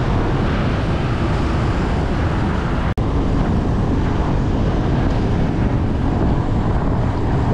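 Wind rushing over the camera microphone of a moving bicycle, with steady road and traffic rumble underneath. The sound cuts out for an instant about three seconds in.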